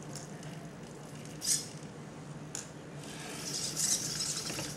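Faint mechanical noise from a small hobby-servo robot arm and the wire spool it works with: a short high whir about a second and a half in, a click, then a longer hiss that grows louder near the end as the spool is slid across the chipboard base, over a steady low hum.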